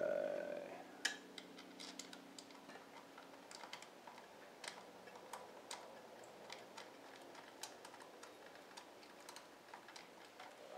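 Faint, irregular small clicks and taps of hands fitting an ignition coil and its mounting bolts, with one sharper click about a second in. A short louder sound comes at the very start.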